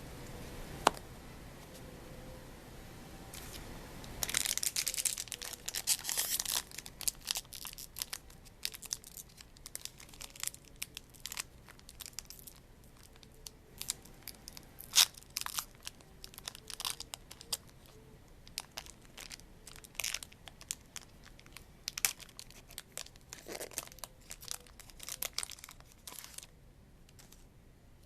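A Magic: The Gathering booster pack's foil wrapper being torn open, with a burst of crinkly tearing about four seconds in, followed by scattered crinkles and sharp clicks as the wrapper and cards are handled.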